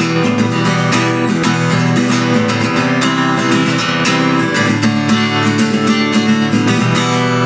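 Guitar strummed in chords, playing out the end of a song, with the strumming stopping near the end and the last chord left ringing.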